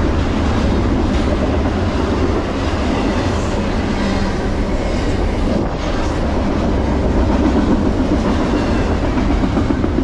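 Double-stack intermodal freight cars rolling past at speed: a loud, steady rumble of steel wheels on rail.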